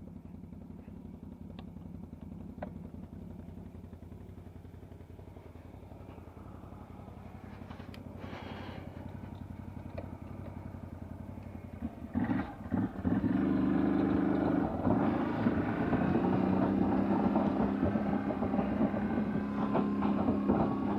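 CFMoto CForce 800 ATV's V-twin engine running steadily at low speed, then getting louder about twelve seconds in as the quad pulls away under throttle, with clattering over the engine.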